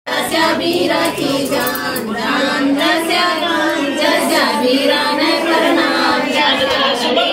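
Group of women singing a Gangaur devotional folk song together, with long held, wavering notes.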